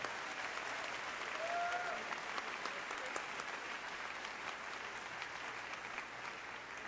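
Audience applauding steadily, with one short call rising above the clapping about a second and a half in.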